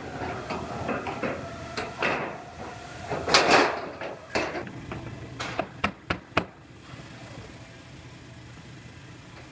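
Clatter, knocks and rubbing of car body parts being handled and fitted. The loudest bump is a little over three seconds in, a few sharp clicks follow around six seconds, and then it goes quieter with only a low steady hum.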